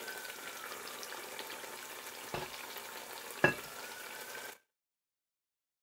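Masala gravy with paneer cubes sizzling and bubbling in a pot, a steady fine crackle with two sharp clicks about two and three and a half seconds in, the second louder. The sound cuts off abruptly about four and a half seconds in.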